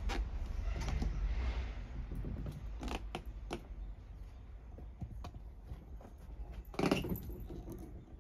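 Scattered creaks, knocks and rustles of hands at work as cord is wound tight around a wooden backpack-frame cat scratching post. The loudest knock comes near the end, and a low steady rumble runs underneath.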